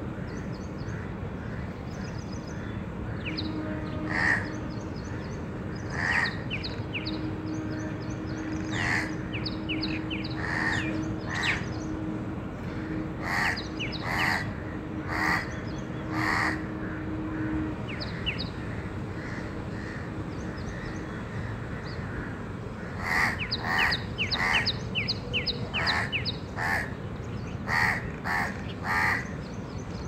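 House crows cawing: short harsh caws every second or two, coming in a quick run near the end, with faint high chirps of smaller birds between them.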